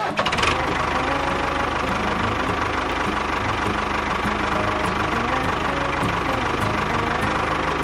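A small engine running steadily with an even, rapid beat, as on a miniature tractor.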